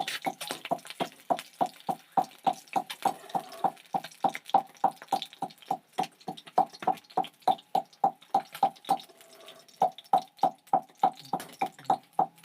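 Rapid, even knocking during food preparation, about four to five sharp strikes a second with a faint ring to each, broken by a brief pause about nine seconds in.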